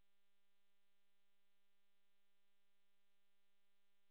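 Near silence apart from a faint, steady electrical hum: a low buzzing tone that does not change.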